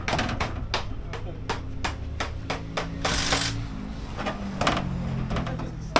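Sharp clicks and taps in quick succession, about five a second, with a short hiss about three seconds in and voices in the background.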